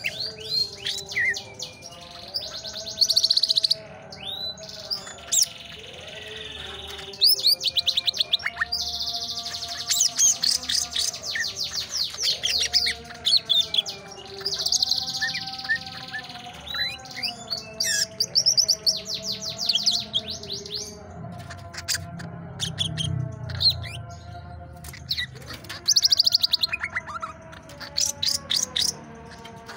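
Caged green leafbird (cucak ijo) singing a long, varied song: bursts of rapid high chirps and trills broken by short pauses, with lower wavering whistles running beneath.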